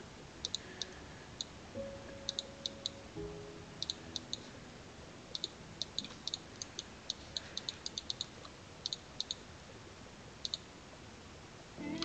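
Computer mouse clicking irregularly, single clicks and quick pairs, faint and close, over low faint music.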